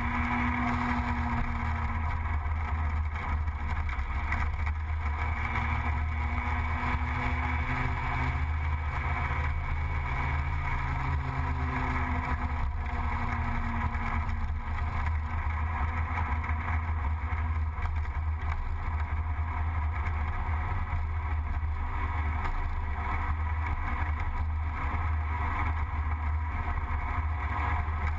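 Gilera Runner 180 scooter engine running at road speed, its pitch rising and falling gently with the throttle, under a steady low rumble of wind on the microphone.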